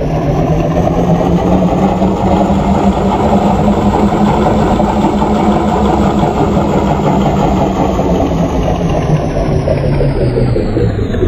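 Yamaha 200 hp outboard motor running steadily, its pitch rising slowly and then easing down near the end.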